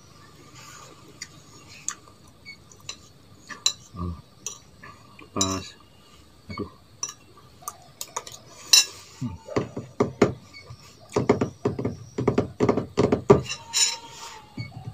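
A metal spoon clinking and scraping on a ceramic plate while someone eats, in scattered sharp clicks. In the last few seconds comes a quick run of louder, lower knocks.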